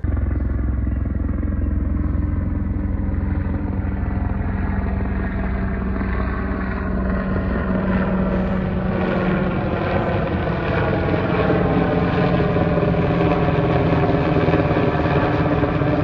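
Helicopter flying overhead, its rotor and engine running steadily and growing somewhat louder toward the end as it comes nearer.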